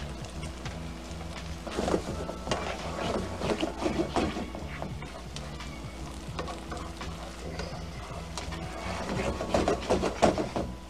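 Wooden spoon stirring risotto rice and broth in a frying pan: irregular scraping strokes, busiest from about two to five seconds in and again near the end.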